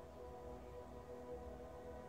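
Quiet background music of long, steady held notes.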